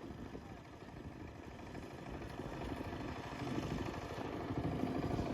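An engine running steadily at a distance, growing gradually louder.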